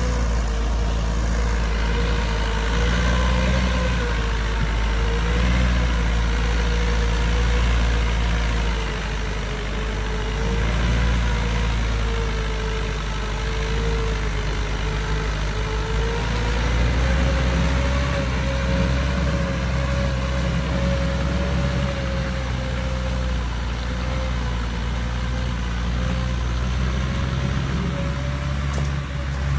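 Massey Ferguson 290 tractor's diesel engine running steadily under load while pulling a tillage implement through dry soil, with a thin whine that wavers slowly in pitch.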